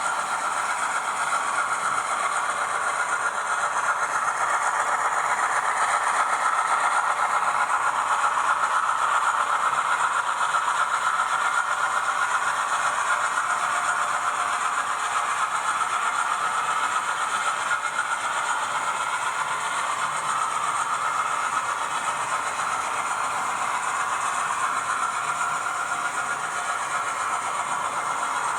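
Auscision Models HO-scale 442 class diesel-electric locomotive model running, its DCC sound decoder playing a diesel engine sound through the model's small speaker, mixed with the rattle of wheels on the track. The sound holds steady, with no horn or change in throttle.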